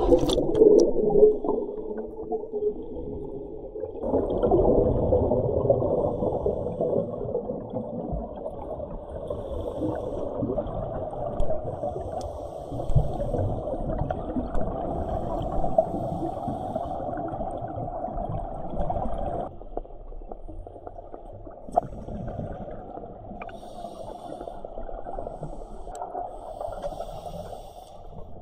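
Muffled underwater sound of scuba diving: the rushing and gurgling of divers' regulator breathing and exhaled bubbles. It grows louder about four seconds in and eases off about two-thirds of the way through.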